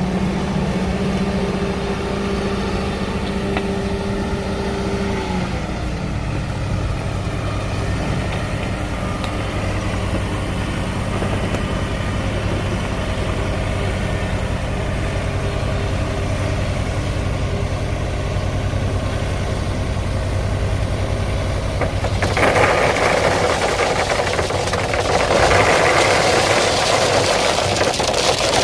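Engine of a heavy digging machine running steadily, its pitch dropping about five seconds in. From about twenty-two seconds a loud rushing noise joins it.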